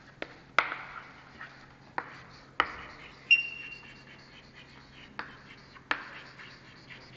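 Chalk writing on a blackboard: sharp taps of the chalk striking the board at uneven intervals between faint scratching strokes, with a brief high chalk squeak about three seconds in.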